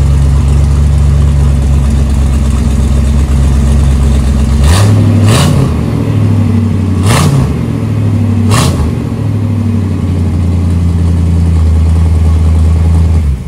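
Square-body Chevy dually truck's V8 idling loud and low through its newly fitted exhaust. About halfway through, the throttle is blipped four times in quick short revs, then it settles back to idle.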